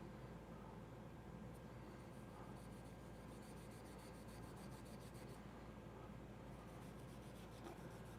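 Faint rubbing as the HP 20S calculator's ribbon contacts are wiped clean, over a low steady hum.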